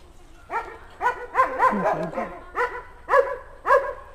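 A dog barking in a string of short barks, roughly two a second, starting about half a second in.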